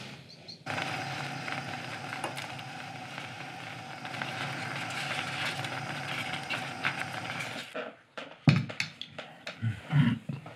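A saucepan of porridge cooking on a stovetop: a steady hiss with a low hum. About eight seconds in it cuts off and a few sharp clinks and knocks of bowls and spoons being set on a table follow, the first one the loudest.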